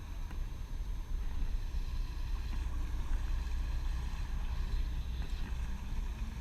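Steady low rumble on board a Thames sailing barge under way, with no single distinct event.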